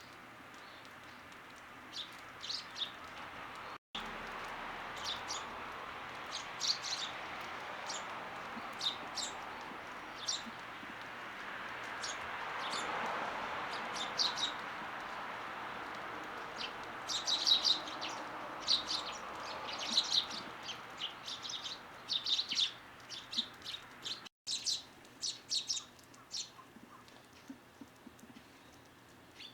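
Small garden birds chirping: many short, high chips in quick clusters, busiest in the second half. Behind them a steady rushing background noise swells in the middle and fades away, and the sound drops out for an instant twice.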